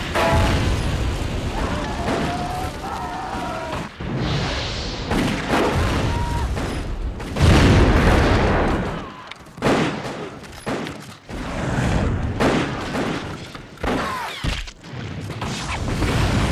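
War-film battle sound effects: flamethrower bursts and explosions mixed with gunfire, in repeated sudden blasts, the loudest about seven and a half seconds in.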